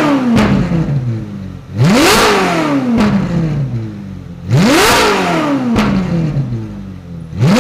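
Ferrari 458 Italia's 4.5-litre V8 through an IPE aftermarket exhaust, blipped hard: the note shoots up and falls away over about a second and a half, with a sharp crack as each rev drops. Two full revs come about two seconds and four and a half seconds in, and another starts near the end.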